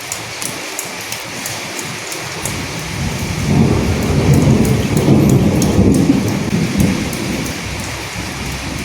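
Steady rain with individual drops ticking close by, and a low roll of thunder that builds about two and a half seconds in, peaks in the middle and fades away near the end.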